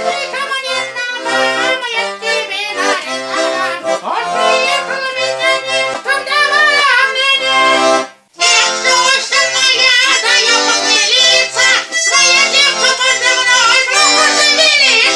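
Garmon (Russian button accordion) playing a lively folk tune in held chords and melody. It breaks off for a moment about eight seconds in, then carries on.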